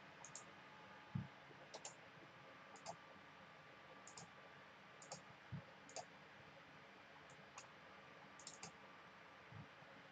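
Faint computer mouse clicks over near silence: about a dozen short clicks, several in quick pairs, with a few soft low thumps among them.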